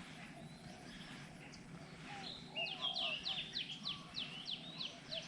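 Birds calling: a low, soft dove-like cooing early on, then from about two seconds in a bird repeating a short, high, downward-sweeping note about two to three times a second.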